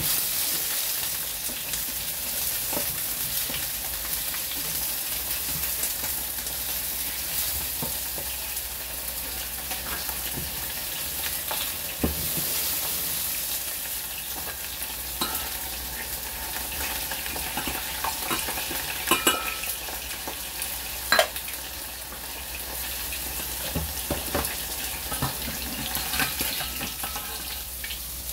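Hot cooking oil sizzling steadily as bell pepper pieces are stir-fried in a frying pan next to a pot of deep-frying oil, with a few sharp clicks of kitchen utensils.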